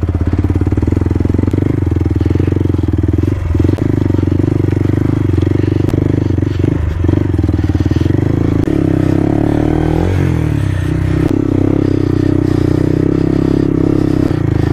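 Single-cylinder dual-sport motorcycle engine running steadily under way on a dirt trail. The revs rise and fall briefly about ten seconds in.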